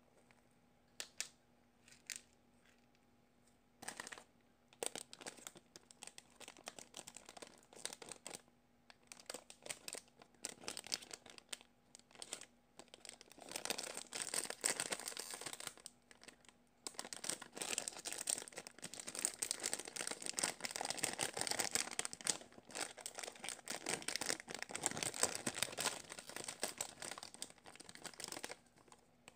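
Scattered light clicks and rustles, then, from about halfway in, a clear plastic bag crinkling steadily as a foam squishy toy is pulled out of it. The crinkling stops just before the end.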